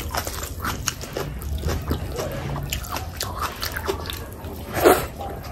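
Close-miked eating of curry: wet chewing and mouth clicks, many small smacks in quick succession, with one louder wet smack near the end.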